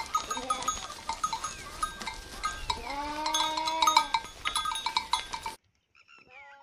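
A flock of sheep with bells clinking steadily, several short bleats, and one long, loud bleat about three seconds in. The sound cuts off abruptly a little past five seconds, leaving only faint calls.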